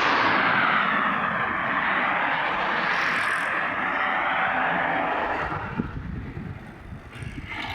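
Small two-stroke chainsaw engine fitted to a bicycle, running with a steady buzz that fades about six seconds in and picks up again near the end.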